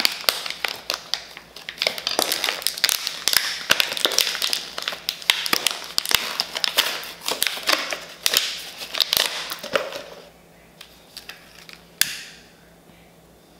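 Plastic packaging crinkling and crackling as it is handled and pulled open, dense and busy for about ten seconds. After that it goes quieter, with one sharp click about twelve seconds in.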